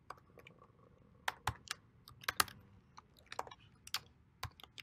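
Typing on a computer keyboard: irregular key clicks in short quick runs separated by brief pauses.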